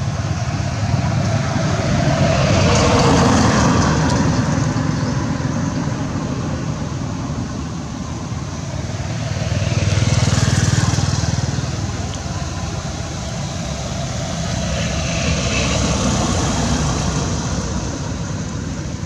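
Steady traffic noise with vehicles passing by: three times the sound swells up and fades away over a few seconds.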